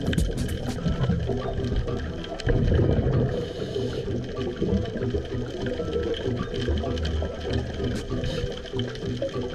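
Underwater recording of scuba exhaust bubbles gurgling and rushing, with a louder surge of bubbles about two and a half seconds in.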